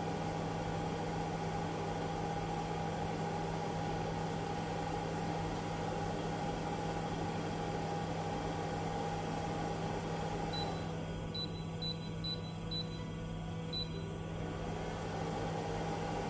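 Skywalker coffee roaster's cooling fan running at 85% with the heater off, a steady hum. About ten seconds in, its higher part drops away for a few seconds, with a few faint high ticks, then returns.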